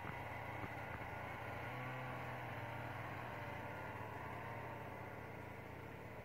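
Ski-Doo Grand Touring snowmobile engine running as the machine pulls away, a steady drone that slowly fades as it draws off.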